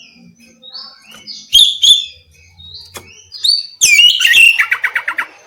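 Oriental magpie-robin (kacer) singing a varied song of whistled and chirped notes. It gives two loud, sharp notes about a second and a half in, then near the end a fast run of about ten repeated notes.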